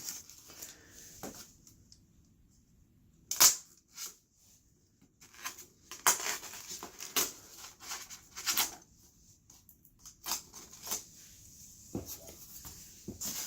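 Unpacking handling of packaging: a sharp snap about three and a half seconds in, then a run of short rustling and clicking strokes as the wrapping is pulled and torn.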